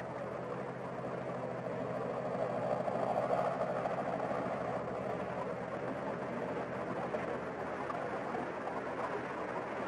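Small floatplane's piston engine droning overhead, growing a little louder about three seconds in and then holding steady.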